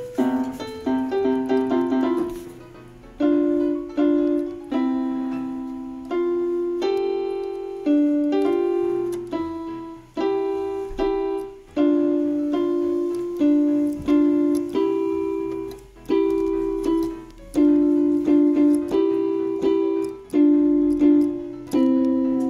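Yamaha PSR-F51 portable keyboard being played: a slow, simple tune of struck notes, often two at once, each fading before the next.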